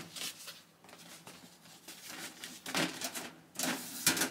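Wire-mesh drawer unit rattling and scraping as its contents are rummaged through and the top drawer is slid back in: a few short rustling, scraping bursts, with two louder ones in the second half.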